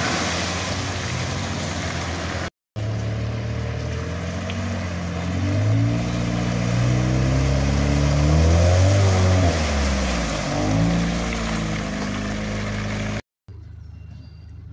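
SUV engines revving hard as they drive through deep mud: first a Jeep Grand Cherokee, then, after a sudden break, an Opel Frontera whose engine pitch climbs and falls repeatedly as the throttle is worked to keep it moving. After a second break, near the end, the engine sound drops to a faint distant level.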